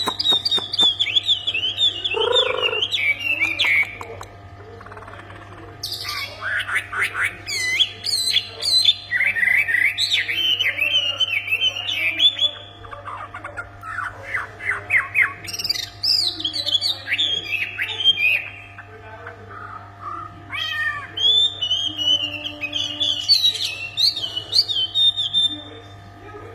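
A songbird of the kind Indonesian bird-keepers call wambi, singing 'gacor' (in full, continuous voice). It sings four long bursts of rapid, high, sweeping chirps with short pauses between them, over a steady low hum.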